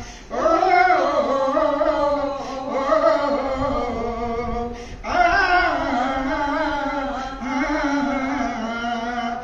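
Women singing together: two long drawn-out melodic phrases without clear words, each a little over four seconds, with a brief break about five seconds in.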